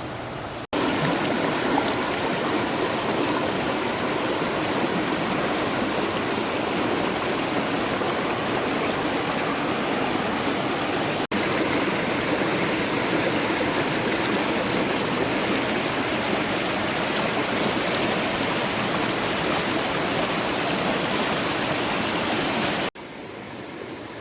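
Steady rush of creek water flowing. It cuts out briefly about a second in and again near the middle, then drops to a quieter level near the end.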